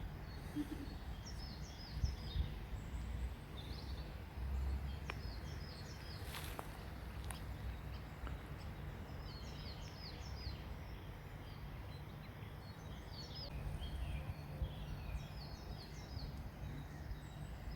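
Small birds chirping in short runs of high, falling notes that come back every few seconds, over a steady low rumble.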